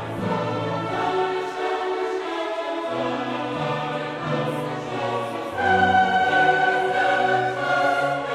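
Background choral music: long held sung notes over a classical accompaniment, swelling louder about five and a half seconds in.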